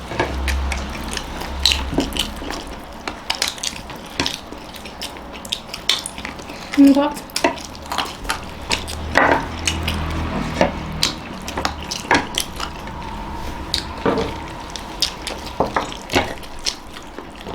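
People eating: chewing and handling food and plates, with many small scattered clicks and knocks.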